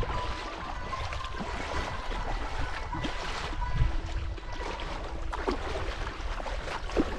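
River water rushing and splashing around a paddled racing canoe-kayak, with a few irregular sharper splashes and a low rumble of wind on the microphone.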